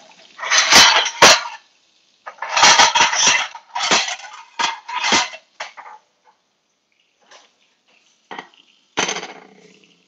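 Crockery clattering and clinking as dishes are handled, in several loud bursts over the first six seconds; about nine seconds in, a single sharp knock as a plate is set down on the glass cooktop.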